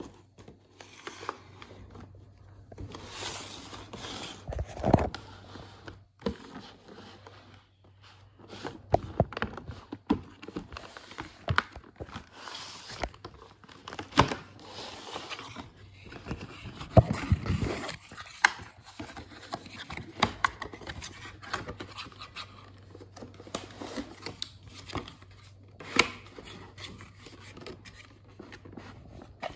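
A cardboard model-train box being handled and opened: scraping, tapping and crinkling of cardboard and packaging, with sharp clicks and knocks scattered throughout.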